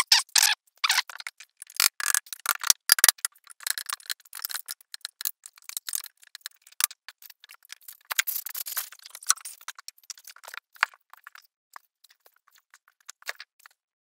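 A wooden-crated package being opened by hand: a quick run of sharp clicks, knocks and rattles with short scraping sounds. There is a longer scrape or rip about eight seconds in, and the sounds grow sparser near the end.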